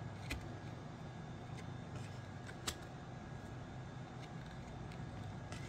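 Trading cards being slid off a stack and flipped in the hand, giving a few sharp card clicks, the loudest a little under halfway through, over a low steady hum.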